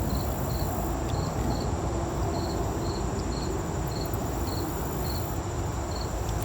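Insects calling: a steady high-pitched buzz with short chirps repeating about twice a second, over a steady low rumble.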